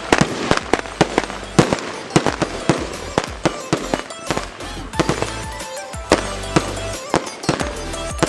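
Fireworks going off in a rapid, irregular string of sharp cracks and pops, several a second, with background music playing underneath.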